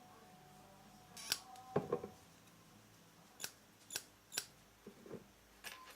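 Small metal snips cutting a strip of easy silver solder into small pieces: several sharp, separate snips at uneven intervals.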